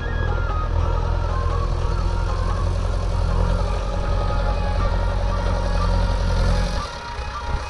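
Heavy diesel machinery engine running steadily, with its level dipping briefly near the end. Faint stepped electronic melody tones, like a horn or reversing tune, sound over it.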